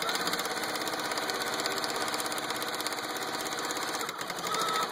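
Domestic sewing machine (a Serenade) running a straight-stitch seam at steady speed: fast, even needle strokes that stop abruptly at the end.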